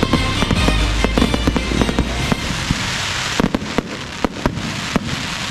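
Fireworks going off over background music; the music stops about halfway through, leaving a quick run of sharp bangs over a hissing crackle.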